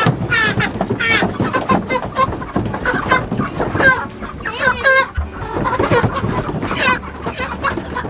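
A crowd of Cornish cross broiler chickens clucking and squawking in many short calls one after another, with a longer wavering call about halfway through. The calls are the birds' alarm as they are grabbed by hand.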